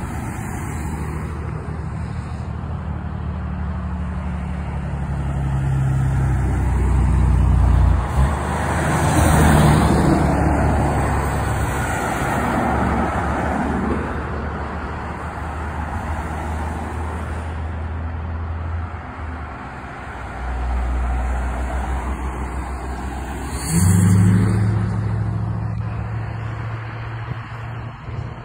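Road traffic on a highway: a steady engine hum close by, with vehicles driving past, loudest about nine to ten seconds in and again with a sudden rise in engine sound around twenty-four seconds.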